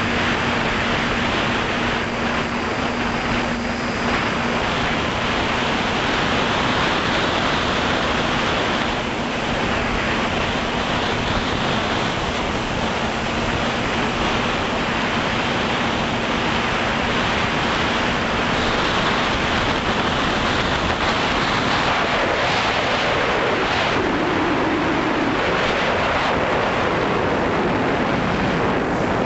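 FPV drone's motors and propellers running, heard through its onboard camera: a steady hum under a broad rush of wind noise on the microphone, with the pitch dipping briefly near the end.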